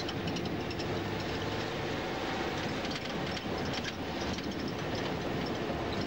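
Inside a moving route bus: the engine's steady drone and road rumble, with frequent light rattles from the bus body.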